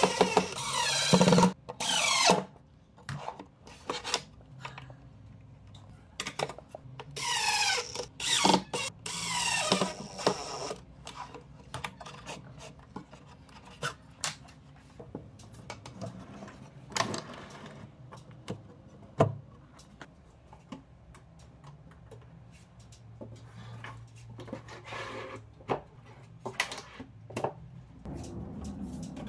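Workshop assembly sounds: scattered knocks, clicks and rubbing of wood panels and metal ball-bearing drawer slides as the slides are fitted to a cabinet side. A few louder stretches of a second or two with a sweeping pitch come near the start, in the middle and near the end.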